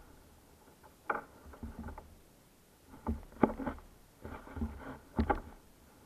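Knocks and rustling from gear being handled against a plastic kayak hull, in several short bouts with quiet gaps between them.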